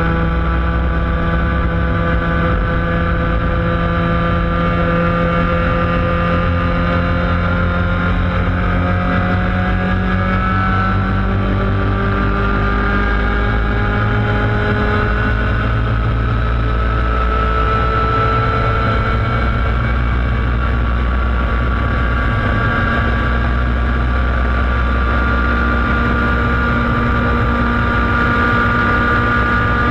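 Laydown enduro racing kart's engine running hard at high revs, heard onboard. Its pitch climbs slowly as the kart gathers speed, then holds high and steady.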